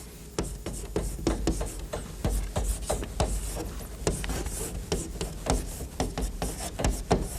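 Writing on a board: an irregular run of short taps and scratches, the strokes of writing out a name and its stroke counts, over a low hum from the hall.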